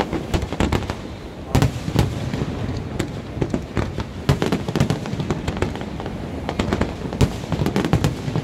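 Fireworks display: aerial shells bursting in a continuous, irregular barrage of bangs, several a second, with a few louder booms standing out.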